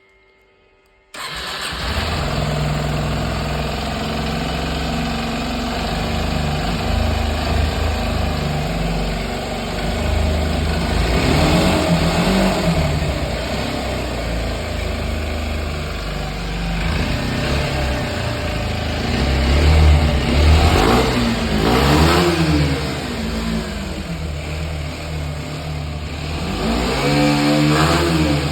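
Kawasaki Z125's air-cooled 125 cc single-cylinder engine through its stock exhaust, starting up about a second in and then idling, with the throttle blipped several times so the revs rise and fall.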